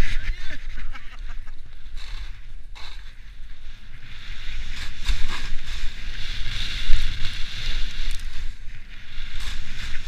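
Edges scraping and hissing over snow during a fast downhill run, with wind rushing over the microphone. The noise swells and fades unevenly, with scattered short scrapes.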